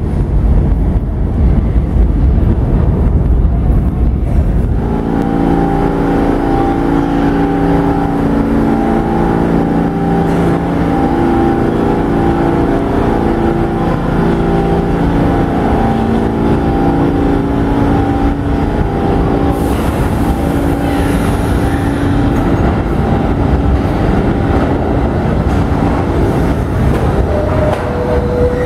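New York subway trains in an underground station. It opens with a deep rumble as an A train pulls out. From about five seconds in comes a steady hum of shifting motor tones as an R32 C train rolls slowly in toward the platform, with a short rising whine near the end.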